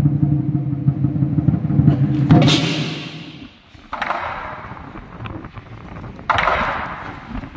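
Traditional southern lion dance percussion. A fast, loud roll on the large lion drum stops about two seconds in, followed by three widely spaced cymbal crashes, each ringing out.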